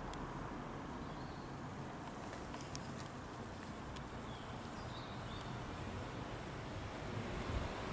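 Quiet outdoor ambience: a low steady background rumble with a few faint bird chirps in the middle.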